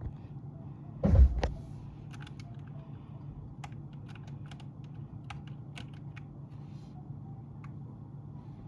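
Irregular light clicks and taps, with one loud thump about a second in, over a steady low hum.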